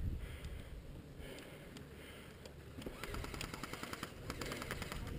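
Airsoft guns firing, a faint, fast run of ticks that grows denser from about three seconds in.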